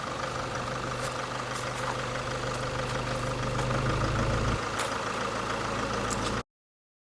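An engine running steadily with a low hum; the low part of the sound changes about four and a half seconds in, and the sound cuts off abruptly near the end.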